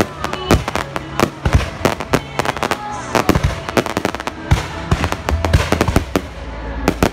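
Aerial fireworks display: a dense, fast run of sharp bangs and crackles, several a second, as rockets go up and burst.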